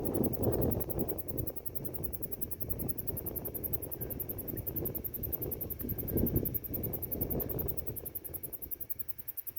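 Gusty wind buffeting the microphone, under a steady, rapidly pulsing high trill of crickets.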